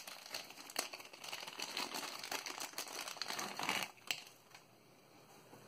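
Clear plastic packaging crinkling and crackling as it is handled and opened by hand, with many small sharp clicks; it dies down about four seconds in.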